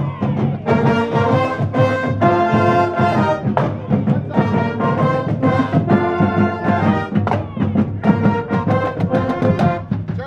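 High school marching band playing live at close range: brass, saxophones and woodwinds sounding a tune together in phrases.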